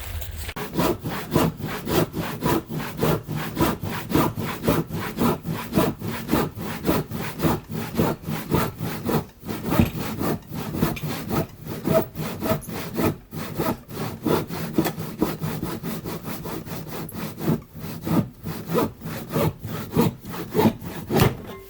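Rhythmic scraping and rustling of someone pushing on foot through dense brush and raspberry canes, stems dragging against clothing and the microphone several times a second.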